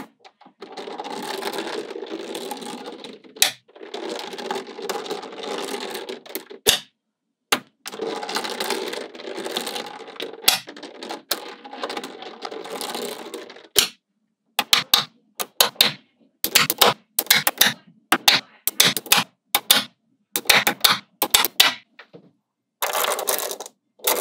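Small magnetic balls clicking and rattling in dense runs of a few seconds each as strands of them are laid down and snap onto a flat sheet of balls. From about halfway through come separate sharp clicks as short rows snap together, with dense rattling again near the end.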